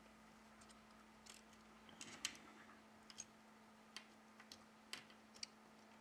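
Faint, scattered light clicks and taps, about a dozen in a few seconds, the loudest a little past two seconds in: small tools and phone parts being handled on a workbench.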